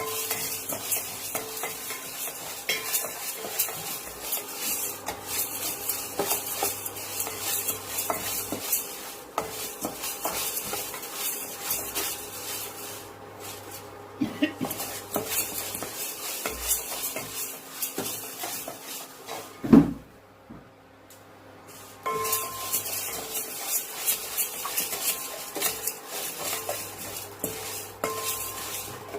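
Black peppercorns being dry-roasted in a pan and stirred, a steady run of scraping and small rattling clicks. A single heavy knock about two-thirds through, after which the stirring stops for a couple of seconds and then resumes.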